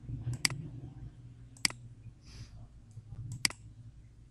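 Computer mouse button clicking three times, a second or more apart, over a low steady hum.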